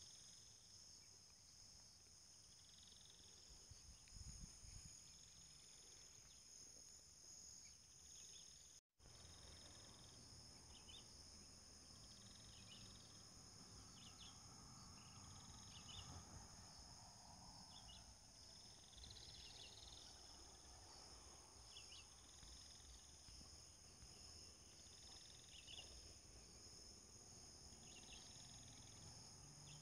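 Faint, steady, high-pitched insect drone, with short high chirps repeating every second or two. The sound drops out for an instant about nine seconds in.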